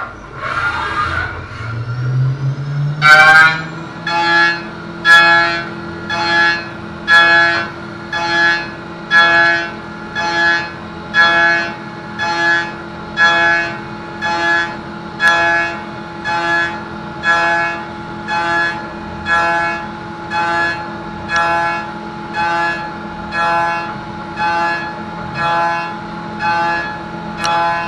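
Doosan CNC machining centre's spindle spinning up with a rising whine. An end mill then cuts the 6082 aluminium plate, with a sharp hit as it engages about three seconds in. After that the cut rings in regular pitched pulses about once a second over the machine's steady hum.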